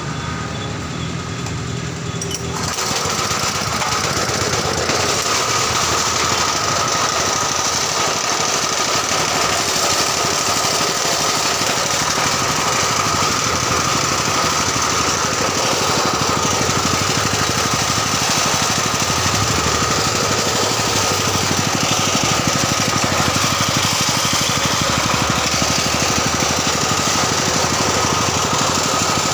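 Honda-engined coconut grating machine running with a dense mechanical rattle. About two and a half seconds in it turns louder and fuller, with a steady high whine over the rattle that holds to the end.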